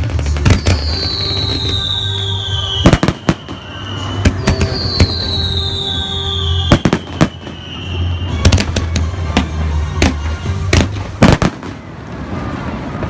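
Fireworks shells bursting in a string of sharp, loud bangs, over music with a deep bass. Two long whistles fall slowly in pitch in the first half.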